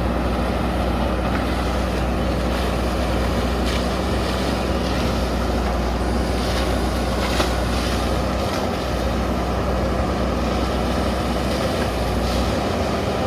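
Diesel engine of a JCB backhoe loader running steadily at a constant speed.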